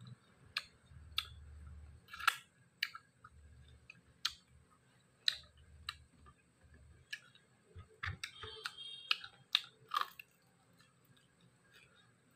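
Chewing and mouth sounds of a person eating dry-fried pork with raw cucumber: wet smacks and crisp crunches, with sharp clicks at irregular intervals throughout.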